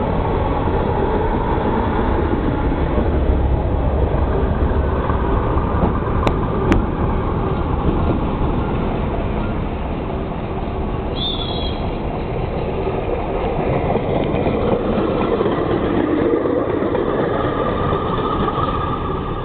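Rail-converted car running past on narrow-gauge park railway track, its engine and wheels giving a steady rumble that thins out after about eight seconds. Two sharp clicks come a little past six seconds and a brief high squeak near eleven seconds. Toward the end a hand-lever draisine rolls along the rails and the rumble swells again.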